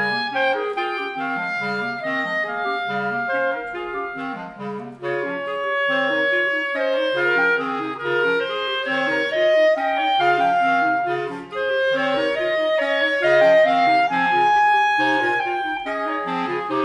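A quintet of two clarinets and three basset horns playing together: the low voices move in short repeated notes under longer held and moving upper lines. The ensemble briefly drops away twice, about four and a half and eleven and a half seconds in.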